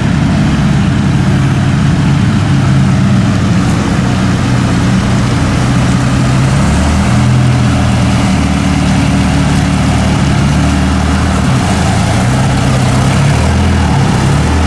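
Off-road vehicle engine running at low revs, its pitch stepping up and down now and then, over a steady rush of noise.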